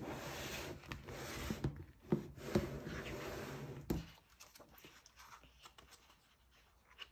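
A thin picture book being handled: it rubs and slides against its cardboard box set with a few light knocks, and taps down on a table about four seconds in. After that it goes quiet, with faint page and cover handling as the book is opened.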